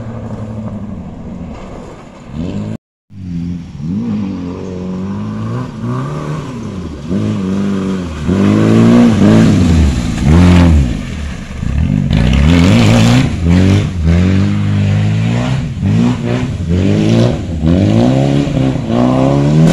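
Proton Satria 4WD turbo rally car at speed, its engine revving up and dropping again and again as it shifts through the gears and lifts off for corners. It is loudest as it passes close by about halfway through.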